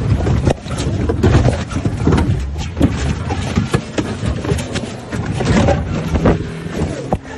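Loud, jumbled rustling, rubbing and knocks from a phone being jostled against clothing.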